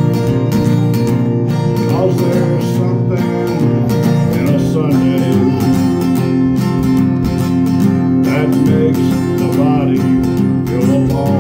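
Steel-string acoustic guitar strummed in a steady country rhythm, an instrumental break between sung verses.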